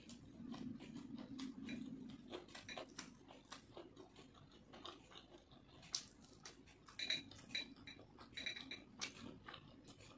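Close-up chewing and smacking of a mouthful of fried rice and chicken curry eaten by hand: a run of soft, wet mouth clicks.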